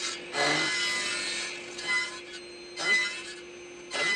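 Table saw running with a steady hum, its blade cutting through wood: one longer cut lasting about a second, then short cuts about once a second.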